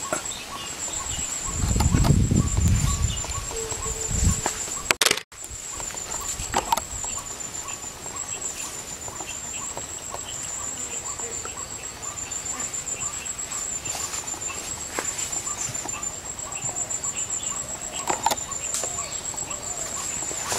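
A steady, high-pitched insect trill, pulsing evenly. A low rumble on the microphone comes about two seconds in, and the sound drops out briefly about five seconds in.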